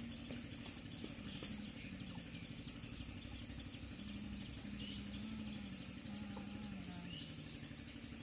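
Outdoor rural ambience: a steady high-pitched hiss with a few short bird chirps and a faint, wavering low hum.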